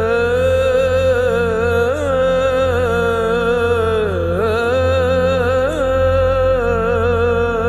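Devotional naat singing: a single voice holds one long note that wavers and bends slowly in pitch, over a steady low hum.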